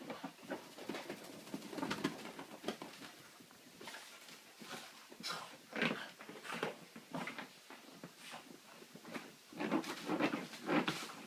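A wet Cavalier King Charles spaniel's excited breathing and scuffling noises, coming in irregular short bursts.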